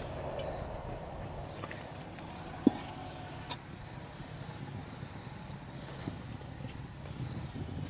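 Steel acetylene cylinder set down on concrete with one sharp metallic clank and a brief ring about two and a half seconds in, followed by a lighter knock. Under it runs a steady low rumble of a vehicle.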